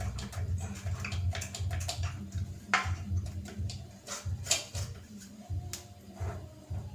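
Background music with a steady low beat, about two pulses a second, and scattered sharp clicks.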